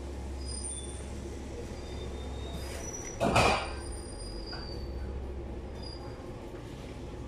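Steady low hum of kitchen equipment, with one brief, loud scrape a little over three seconds in as the chef works at the sushi counter.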